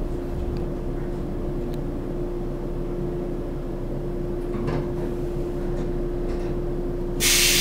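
Cabin of an old JNR-type electric train, taken to be a 413 series, standing at a platform: a steady electrical hum over low rumble, with a few faint clicks. About seven seconds in, a loud hiss starts suddenly.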